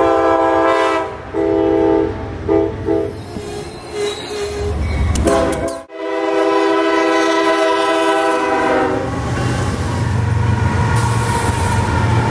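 Diesel locomotive air horns sounding several blasts in quick succession. There is an abrupt cut about six seconds in, then one long horn blast of about three seconds, followed by the deep rumble of a locomotive passing close by.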